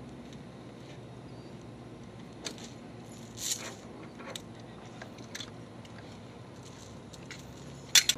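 Metal helicopter tie-down chain being handled: scattered light clinks and jingles of the links and hook against the fitting, with a sharper clank near the end.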